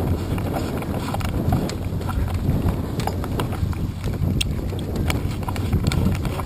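Wind rumbling steadily on the microphone of a camera mounted on a moored boat rocking on choppy water, with irregular light knocks and clicks scattered through.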